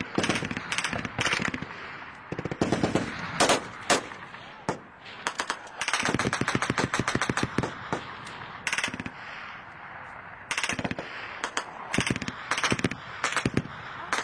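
Bursts of automatic gunfire, shot after shot in quick strings, with the longest and densest string about six seconds in.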